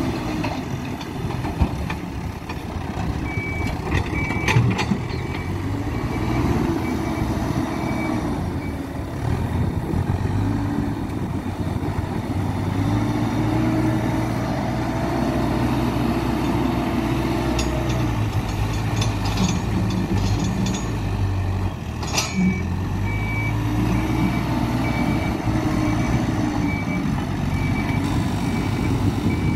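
Hidromek 102B backhoe loader's diesel engine working under load, its revs rising and falling again and again as the machine digs and moves, with the reversing alarm beeping about once a second in two spells. A few sharp metallic knocks, the loudest about two-thirds of the way through.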